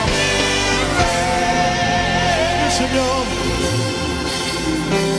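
Live gospel band music, with a sustained sung line wavering in vibrato over a steady bass; the bass drops away about three and a half seconds in.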